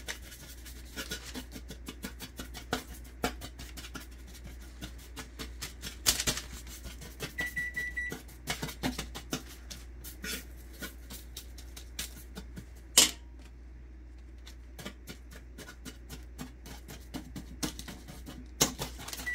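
A metal fork scraping and tapping through baked crumble on a parchment-lined baking sheet, breaking it into crumbs, with irregular clicks and scrapes; the sharpest click comes about 13 s in. A short electronic beep sounds once about 7 s in.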